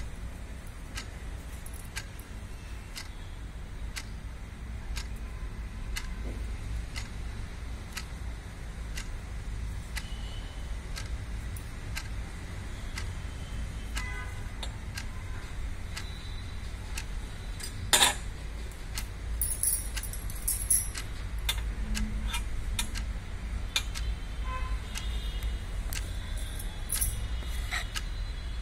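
Regular light ticking, roughly two ticks a second, over a steady low hum. A single sharp click comes about 18 seconds in, followed by brief small rattles.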